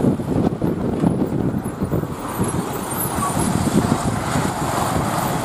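Road traffic with buses passing close by: a steady rumble of engines and tyres.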